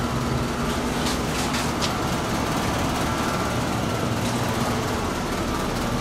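Steady mechanical drone with a low rumble, like nearby machinery, with a few short clicks or scrapes between one and two seconds in.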